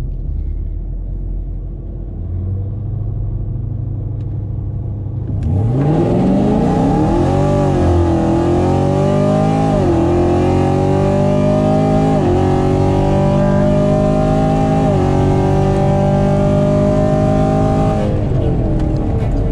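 Car engine idling, then launched at full throttle about five seconds in, rising in pitch through four quick upshifts. Heard from inside the cabin; it eases off near the end.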